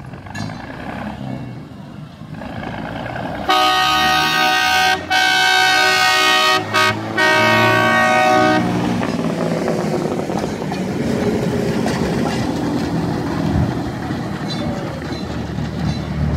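Galloping Goose No. 5 rail motorcar running as it approaches. About three and a half seconds in, its horn sounds loudly for about five seconds, broken by a few brief gaps. The engine and wheels then keep rumbling as it rolls past on the rails.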